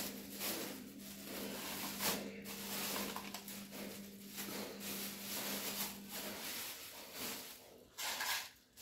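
Irregular rustling and handling noises, with a steady low hum that stops about six seconds in.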